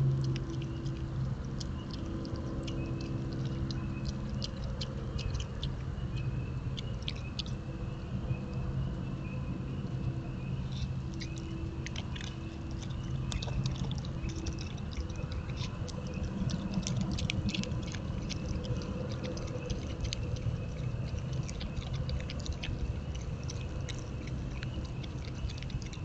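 Virginia opossum chewing food at a feeder: a long run of irregular wet clicks and crunches, over a steady low hum.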